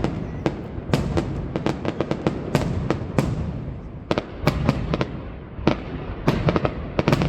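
High-altitude aerial fireworks bursting: many sharp irregular bangs and crackles, several a second, over a steady low rumble of shells going off.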